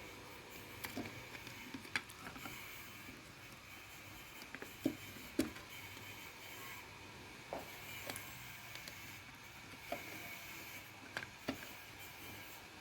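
Light clicks and taps of small plastic parts being handled and prised at, scattered irregularly with the loudest pair about five seconds in, as a car door lock actuator is taken apart by hand.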